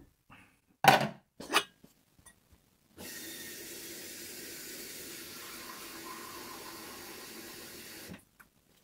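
A few brief knocks as a cooking pot and its lid are handled, then a kitchen tap running steadily into the pot for about five seconds to fill it with water, shut off abruptly.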